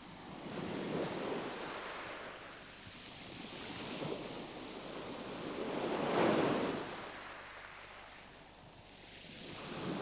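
Rushing water noise swelling and fading in slow surges every two to three seconds, like waves washing in, loudest about six seconds in.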